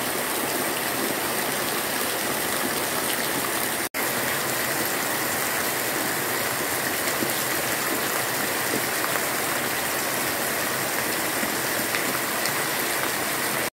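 Heavy rain falling steadily, with water streaming and splashing off a roof edge. The sound cuts out for an instant about four seconds in.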